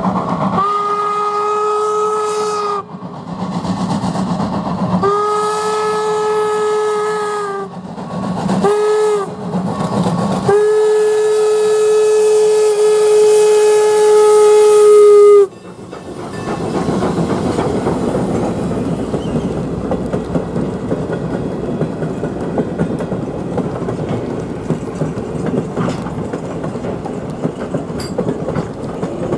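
Steam locomotive whistle blowing the grade-crossing signal: two long blasts, one short, then a final long blast held about five seconds. The locomotive and its passenger coaches then roll past, with a steady clickety-clack of wheels over the rail joints.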